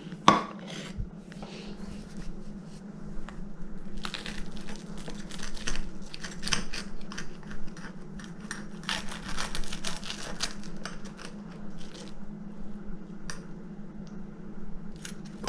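Knife sawing through fried-egg toast on a plate: irregular crackly scraping of the toasted bread in bursts, with clicks of the metal on the plate, over a steady low hum.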